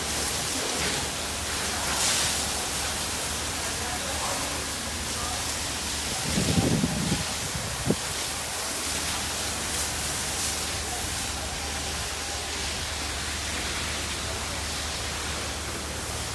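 Steady rushing hiss of water spraying from a fire hose, with a brief low rumble about six and a half seconds in and a sharp knock near eight seconds.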